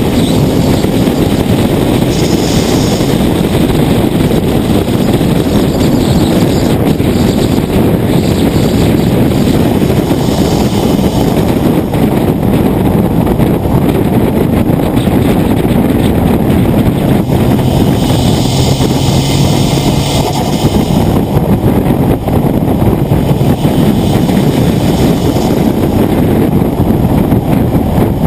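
Steady, loud rush of wind and road noise at a low, car-mounted camera on a Nissan GT-R cruising at speed, with a faint engine hum showing through about two-thirds of the way in.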